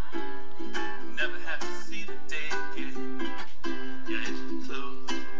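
Ukulele music played live: plucked and strummed ukulele notes and chords in a steady rhythm.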